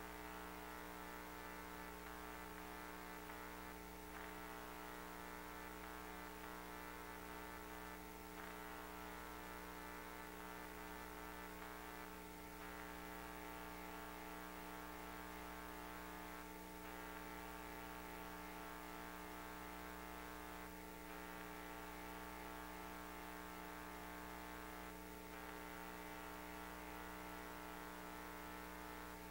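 Faint steady electrical hum: several constant tones over a light hiss, with a slight brief dip about every four seconds.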